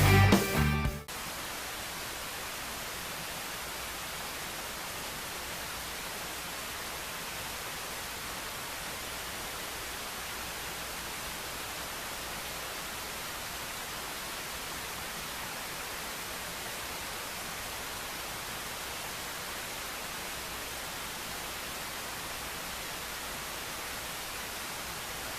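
Rock music cutting off about a second in, followed by a steady, even hiss that does not change.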